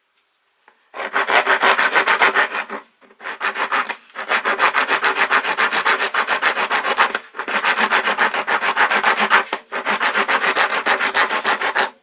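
Coarse-cut steel half-round wood rasp filing wood, a rough scraping in five long runs with short breaks between them.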